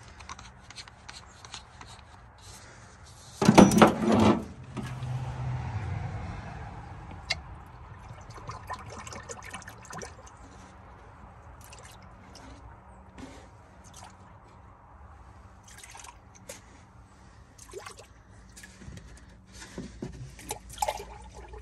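Automatic transmission fluid poured from a plastic jug into the open cylinder bores of a seized engine, trickling and splashing as the cylinders fill. A brief, louder burst comes about three and a half seconds in, followed by a few seconds of heavier pouring, then quieter trickling with small scattered clicks.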